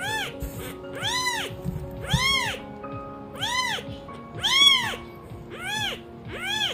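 Newborn kitten mewing over and over, a short high-pitched cry that rises and falls, about once every second.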